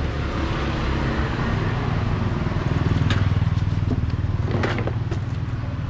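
A motor vehicle's engine passing close by: a low hum that swells to its loudest about three seconds in and then eases off, with a few sharp clicks.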